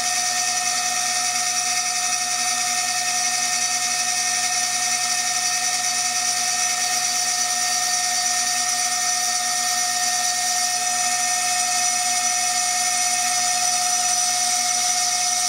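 CNC milling machine running with a steady high-pitched whine made of several constant tones, unchanging throughout.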